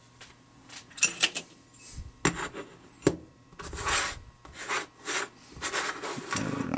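An American 3700 padlock being taken apart by hand: metal parts click and knock sharply a few times, between several short rasping scrapes.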